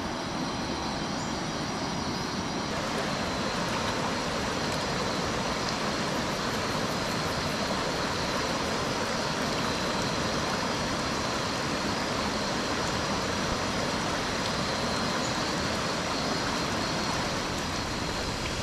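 A swollen river running over rocks: a steady, even rush of water.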